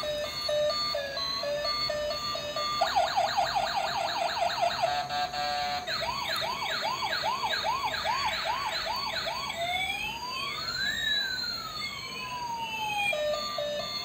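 Toy police car's electronic sound chip: a short beeping tune, then a fast yelping siren, slower whooping siren sweeps, and one long wailing siren rising and falling, before the beeping tune starts again near the end.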